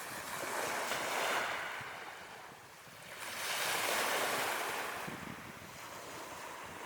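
Ocean waves breaking and washing up on a beach, two surges of surf swelling and fading, about three seconds apart.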